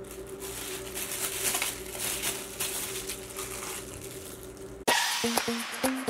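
A plastic bag rustling and crinkling as it is handled, over a low steady hum. Background music with short repeated notes starts suddenly near the end.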